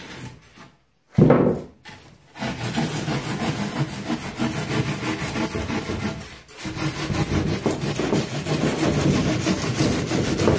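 Hand saw cutting through rigid foam board in quick back-and-forth strokes, in two long runs with a short break in the middle. A single bump comes about a second in, before the sawing starts.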